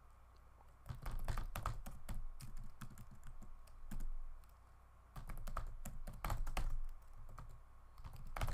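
Typing on a computer keyboard: runs of quick keystrokes that start about a second in, stop briefly just after four seconds in, then pick up again.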